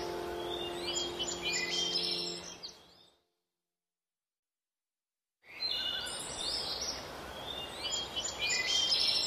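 Small birds chirping over a steady outdoor hiss, with a low held tone fading out during the first couple of seconds. The sound fades to silence for about two seconds in the middle, then the birdsong comes back.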